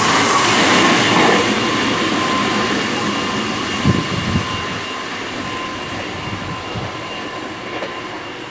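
Meitetsu electric train of 3700 series and 3100 series cars coupled together, running away from the station and fading steadily with distance. A thin steady whine sits over the rumble of the wheels, and two clunks on the rail come about four seconds in as the last cars pass.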